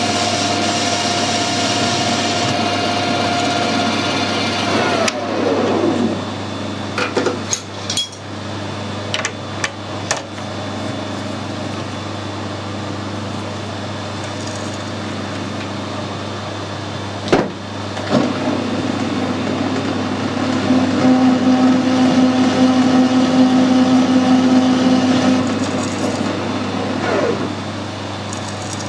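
Metal lathe spindle running, then winding down about five seconds in with a falling whine. A few clicks and a sharp knock follow. Later a steady machine hum runs for several seconds and winds down the same way near the end.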